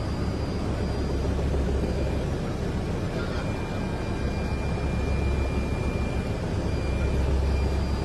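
Aircraft in flight, heard from on board: a steady, even engine drone, heaviest in the low range, with a faint high whine held on top.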